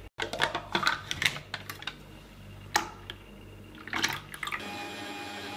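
Liquid cream poured from small cartons into a plastic mixing bowl, with clicks and taps of the cartons being handled. Near the end a steady motor whine takes over: the Bosch ProfiMixx stand mixer running to whip the cream.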